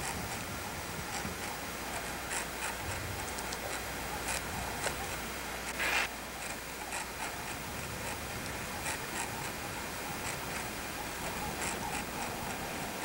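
Field ambience: a steady hiss with scattered faint ticks and clicks, and one slightly louder short sound about six seconds in.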